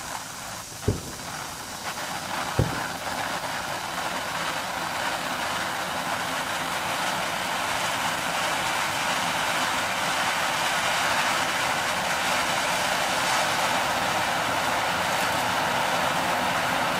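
Lesli Drachenfeuer Gold firework fountain burning with a steady, rushing hiss as it throws out its gold spark spray, slowly growing louder. Two sharp single pops stand out about one and two and a half seconds in.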